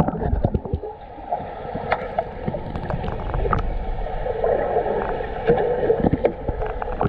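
Muffled underwater sound of a kayak being rolled: water churning and bubbling, with scattered clicks and knocks.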